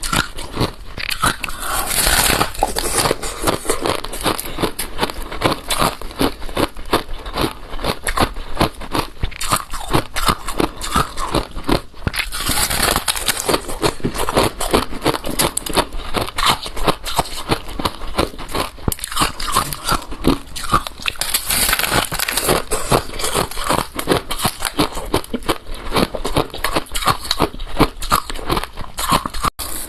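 Close-miked biting and chewing of balloon ice (ice frozen inside a balloon): a dense, continuous run of sharp crunches and crackles as the ice is broken up in the mouth.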